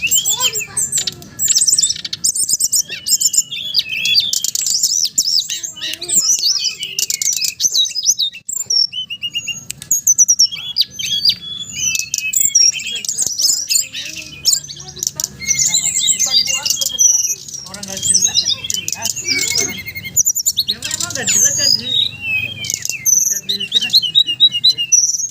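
Dense, overlapping chirping and fast trilling of several small songbirds, a bird-song lure recording meant to prompt caged birds to start singing.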